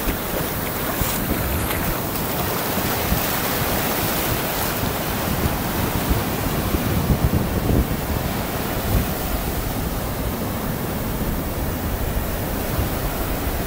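Sea waves surging and breaking on the shore, a steady wash of surf, with wind buffeting the microphone in gusts.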